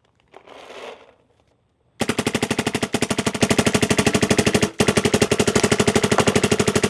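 DYE MXR electronic paintball marker firing in fast strings, many shots a second, with two brief breaks, after a short soft rustle.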